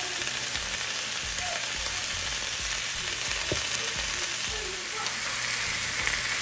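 Chuck roast pieces searing in hot olive oil in a cast-iron skillet: a steady sizzle.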